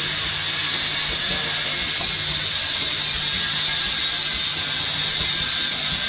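CX-YGF automatic roll-on bottle filling, plugging and capping machine running: a steady hiss with a low hum underneath.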